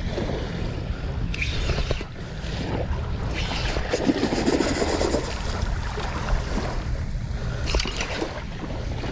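Wind buffeting the camera microphone over small waves lapping at the shoreline, with a hooked king mackerel splashing at the surface about four seconds in.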